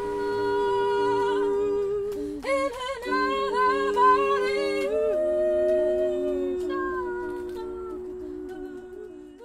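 A small group of voices singing a cappella in harmony, with low held notes under a higher wavering line; a louder voice comes in about two and a half seconds in, and the singing fades out near the end.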